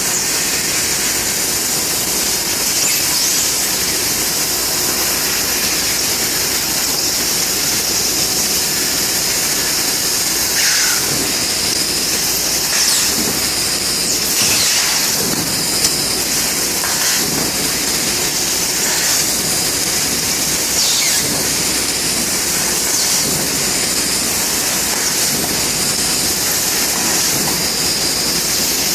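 Bystronic CNC laser cutting machine running with a steady, loud, high-pitched hiss, with a few brief louder swishes scattered through it.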